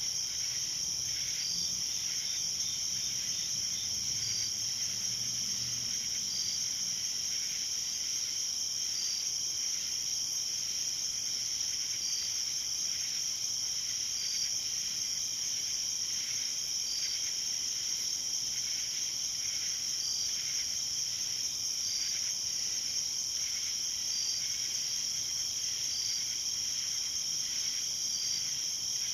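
Night insects, crickets among them, keeping up a steady high-pitched chorus, with one chirp repeating about every two seconds over the continuous trill.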